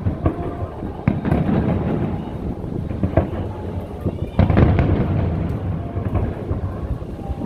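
Large aerial fireworks shells bursting in quick succession: repeated sharp bangs over a continuous deep, echoing rumble, with an especially big burst about four and a half seconds in.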